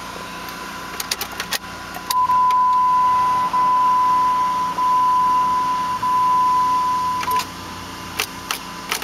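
Jeep Grand Cherokee dash warning chime at key-on: a steady high beep held for about five seconds, with tiny breaks about every second, while the instrument gauges sweep. A few clicks come before and after it, and the starter does not crank.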